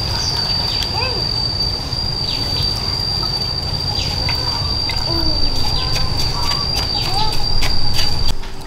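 Birds calling in short, scattered chirps, over a steady high whine and a low rumble like wind on the microphone. The whine and rumble cut off suddenly just before the end.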